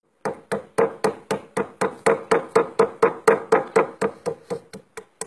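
Rubber mallet pounding frozen animal fat on a stone slab in quick, even blows, about four a second, the last few lighter, cracking the fat into small pieces to make sivo, the traditional grease for oars.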